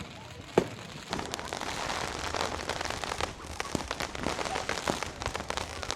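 Fireworks: a single bang about half a second in, then from about a second in a dense, continuous crackle of many small pops.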